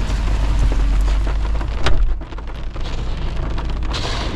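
Steady hiss of rain and water in a storm's wet aftermath, with a low rumble for the first two seconds that ends in a sharp knock. After that the hiss carries on with scattered light ticks.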